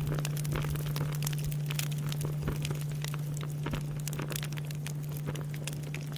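Bonfire crackling with many small, irregular pops, over the low hum of a large Buddhist temple bell slowly dying away after its last strike.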